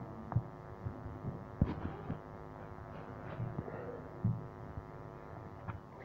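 Steady electrical hum with a few soft, low thumps scattered through it.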